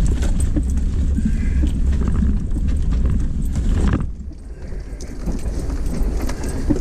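Off-road 4x4 crawling over a rocky dirt trail: a steady low engine rumble with the crunch and knock of tyres and chassis over loose rock. About four seconds in the rumble drops for a second, then builds again.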